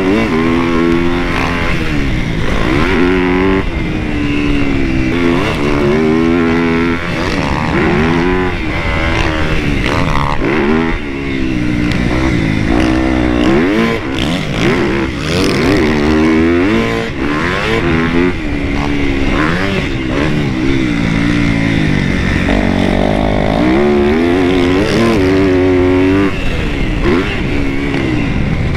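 Dirt bike engine at close range from the rider's own bike, revving up and dropping off again and again as it accelerates and backs off through the track's sections.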